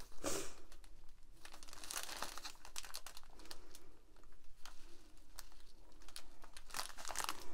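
A strip of sealed plastic bags of round diamond-painting drills crinkling as it is handled and turned over. It makes an irregular run of small crackles.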